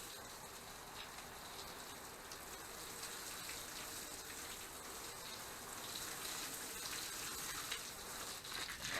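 Water splashing onto garden beds as plants are watered, a steady hiss.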